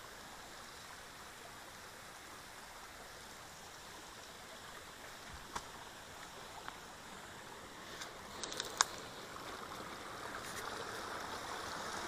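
Small waterfall in a creek bed splashing steadily, growing a little louder over the last two seconds. A few sharp clicks from about halfway, the sharpest about three quarters in.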